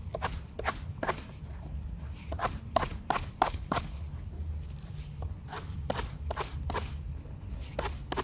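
Footsteps crunching over a forest floor of dry pine needles and twigs: a run of sharp crackles, about three a second, with a short pause about four seconds in. A low rumble sits underneath.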